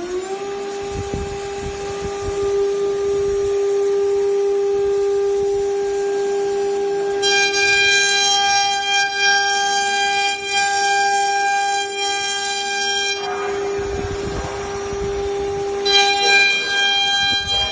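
CNC router spindle running at speed with a steady high whine. About seven seconds in the bit goes into the board and cuts for about six seconds, adding a rougher, higher cutting noise over the whine; cutting starts again near the end.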